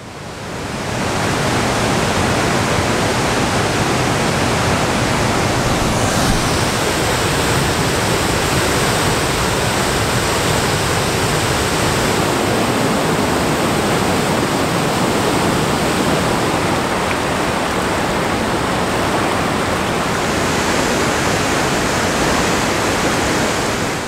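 Large river waterfall running in high water: a steady, loud rush of falling white water that fades in over the first second or so.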